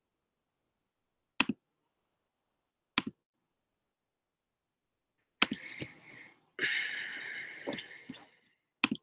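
Computer mouse clicks: four single sharp clicks a second or more apart, with about three seconds of hissing noise between the third and the last.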